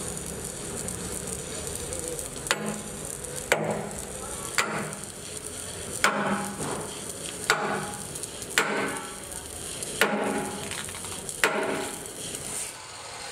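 Sledgehammer blows on a steel tooth plate fitted to an excavator bucket's cutting edge: eight sharp metallic strikes about one to one and a half seconds apart, each ringing briefly.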